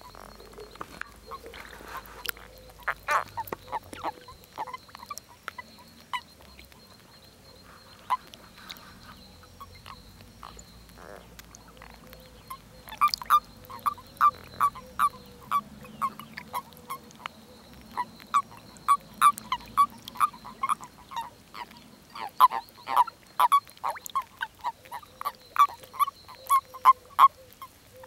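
Common toads croaking during their spring breeding gathering: short, quick croaks, scattered at first, then coming several a second through the second half.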